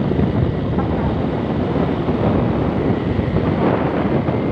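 Wind rushing over the microphone of a moving motorcycle, with the engine running steadily underneath.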